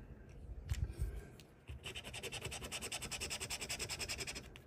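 A coin scratching the coating off a scratch-off lottery ticket in quick, even back-and-forth strokes, starting about two seconds in after a couple of soft knocks.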